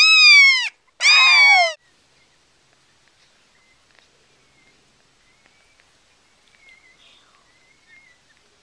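Newborn Yorkshire terrier puppy crying: two high cries in the first two seconds, each falling in pitch, followed by a few faint little squeaks.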